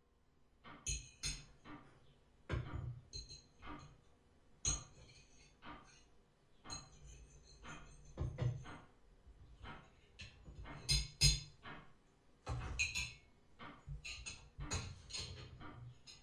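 Cutlery and glasses clinking and knocking on plates and the table during a meal, in short irregular clinks with a few louder ones.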